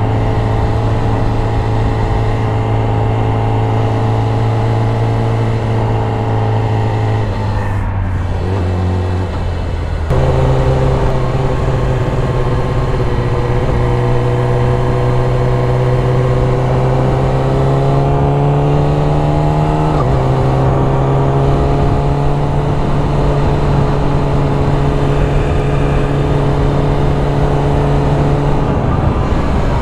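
Yamaha R6's inline-four engine running at city riding speed. Its note fades about seven seconds in, then comes back louder about ten seconds in. It climbs slowly and drops sharply again about twenty seconds in.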